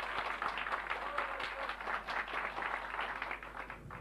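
Audience applauding: many people clapping together, dying away just before the end.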